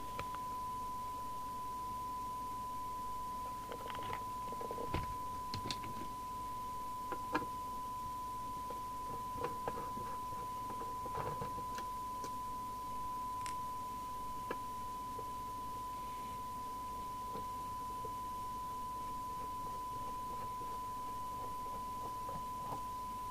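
A steady, pure test tone from a Rotel RVC240 FM CB radio receiving a tone-modulated signal from a signal generator, with scattered light clicks and knocks as hands work on its metal case.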